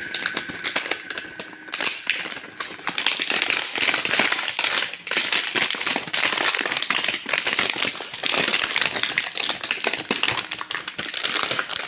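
Cardboard box and plastic packaging of a toy dart gun being opened and handled: dense rustling, crinkling and clicking.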